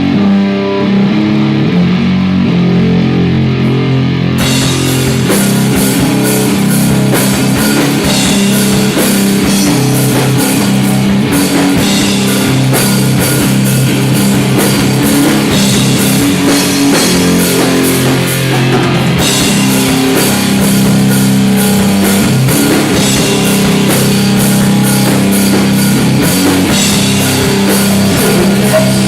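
Rock band playing live: sustained guitar and bass chords, with the drum kit and cymbals coming in about four seconds in.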